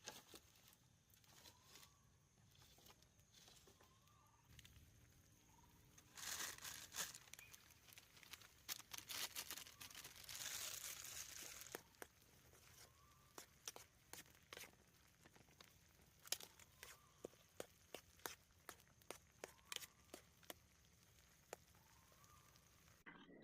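Faint rustling and crinkling, as of something being handled, with many small clicks and a louder stretch of crinkling noise in the middle. A faint short rising chirp recurs every second or two.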